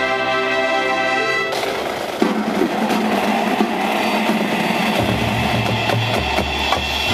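High school marching band: a held brass chord cuts off about a second and a half in, and the percussion takes over with a drum roll and a sharp hit about two seconds in. Low bass notes enter in the last two seconds, changing pitch once.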